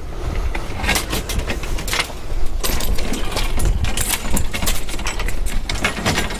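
Metal clinks, knocks and rattles from the mast's fittings and rigging wire as the lowered sailboat mast is handled and shifted, over a steady low wind rumble on the microphone.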